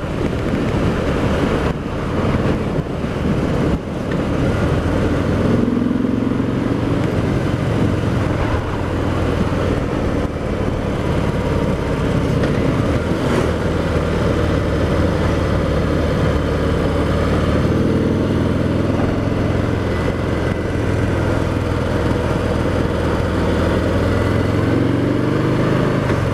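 Harley-Davidson Sport Glide's Milwaukee-Eight 107 V-twin running at road speed, mixed with wind noise on the microphone. The engine note rises a little about five seconds in and again near the end.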